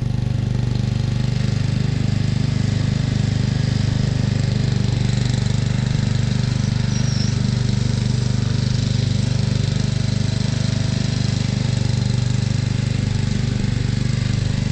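Stiga ride-on lawn mower's engine running steadily at an even speed while it mows, with its freshly refitted and sharpened blades turning under the deck.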